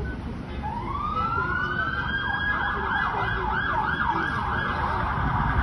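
Emergency vehicle siren passing close by: a rising wail that switches about two seconds in to a fast yelp, sweeping up and down about three times a second.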